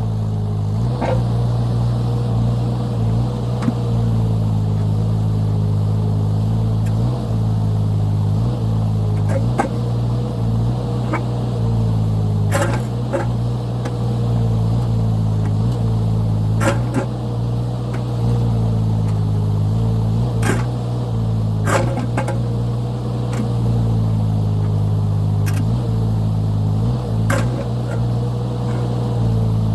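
Mini excavator engine running steadily under load with a faint wavering hydraulic whine. About eight sharp clanks of the bucket against rock are spread through it.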